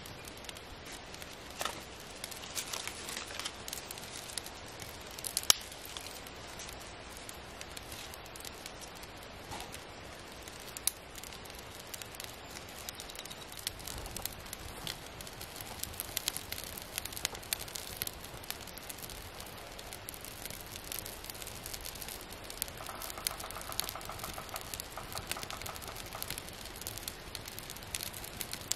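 Small wood fire of kindling and sticks catching in a pop-up fire pit, crackling with sharp pops and ticks that come thicker in the second half as the flames take hold.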